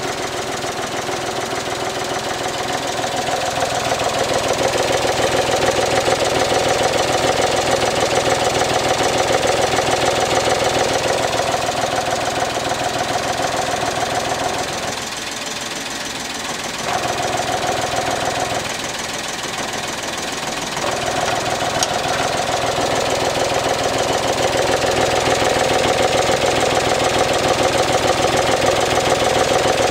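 Suzuki Alto HA24's 660 cc three-cylinder engine idling with a rapid clattering rattle from the air cleaner box, whose rubber support bushing has worn away so the box knocks against its mount. About halfway through the rattle dies down twice for a couple of seconds, as the box is held steady by hand.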